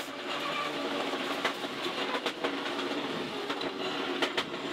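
Ford Escort RS Cosworth's turbocharged four-cylinder engine running, heard from inside the stripped cabin over steady tyre and road noise on a wet road, with many irregular clicks and knocks from the car's body.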